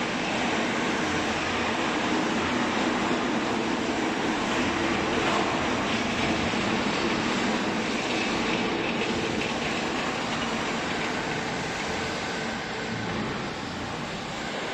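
Hydraulic cloth baler running, a steady mechanical drone with a low hum and no distinct strokes.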